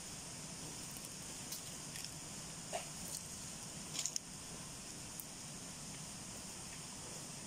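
Wild boar rooting and chewing in dry leaf litter: a few scattered crunches and rustles, the loudest cluster about four seconds in, over a steady high hiss.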